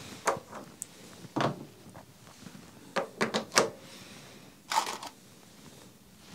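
Scattered small clicks and knocks of brass cases and a bullet being handled at a bench-mounted reloading press, with a quick run of three or four clicks about three seconds in and a short scraping rustle just before five seconds in.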